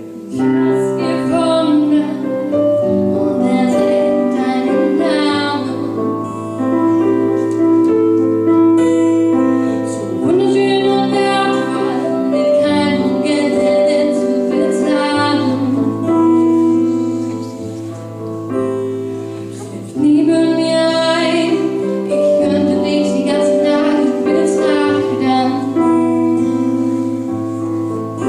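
A girl singing a song, accompanied on piano and acoustic guitar, in phrases over a steady held bass line.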